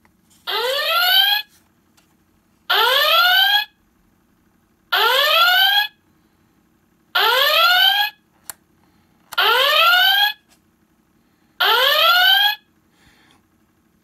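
Star Trek Enterprise intercom door chime toy playing the original-series red alert klaxon through its small speaker: six rising whoops, each about a second long, about two seconds apart.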